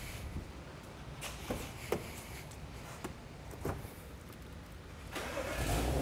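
A few light clicks and knocks, then about five seconds in the BMW N55 3.0-litre turbocharged straight-six cranks, starts and keeps running. The engine is being checked for an intermittent misfire.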